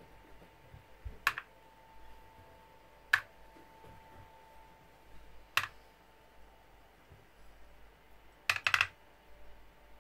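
Loose steel ball bearings from a bicycle hub dropped into a small plastic box, each landing with a sharp click: three single clicks a couple of seconds apart, then a quick little rattle of several near the end.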